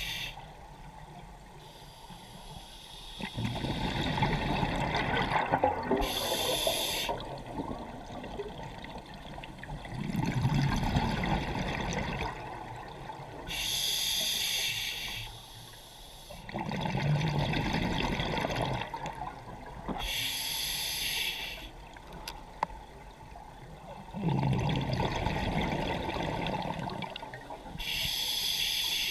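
Scuba diver breathing underwater through a regulator: a short hiss of inhaled air through the demand valve, then a longer bubbling, gurgling exhale. The cycle repeats about every seven seconds, four breaths in all.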